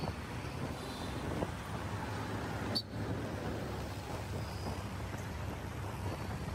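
Steady road traffic noise: engines and tyres of passing cars and light goods trucks, with a brief dip in level about three seconds in.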